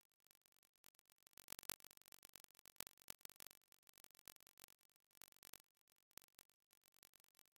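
Near silence, broken by faint rustling and light clicks from a shirt dress and its wooden hanger being handled and hung on a clothes rack, from about a second in until shortly before the end.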